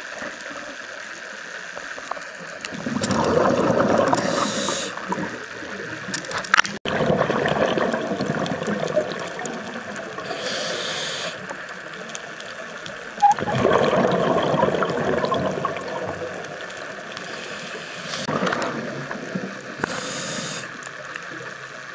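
A scuba diver breathing through a regulator underwater. Exhaled bubbles gurgle out in long bursts, loudest about 3 and 13 seconds in, and the regulator gives a short high hiss on each inhale between them.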